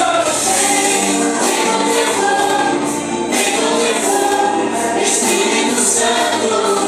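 Live gospel worship song: a group of voices singing together in held notes, with instrumental accompaniment.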